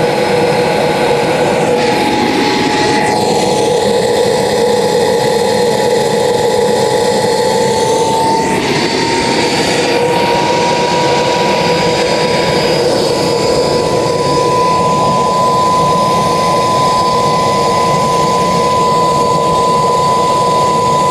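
Saphir-5 auxiliary power unit, a small gas turbine, running with a steady whine over a rushing roar. Its pitch rises a little about eight to ten seconds in as the turbine speeds up slightly.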